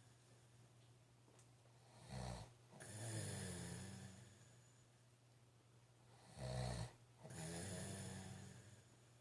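A man snoring in his sleep: two breaths about four and a half seconds apart, each opening with a short loud burst and followed by a longer drawn-out snore.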